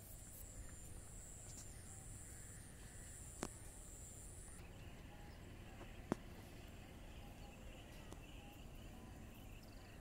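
Faint evening insect chorus: a steady high-pitched whine that stops about halfway through and gives way to a lower, continuous chirring, over a low outdoor rumble. Two sharp clicks sound, one about three and a half seconds in and one about six seconds in.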